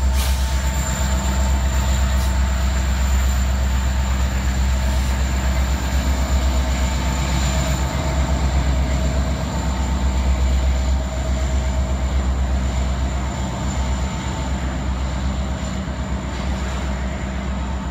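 Several Norfolk Southern diesel locomotives passing close by in a multi-unit consist. Their engines run with a deep, steady rumble, a faint steady whine sits above it, and the sound eases slightly near the end.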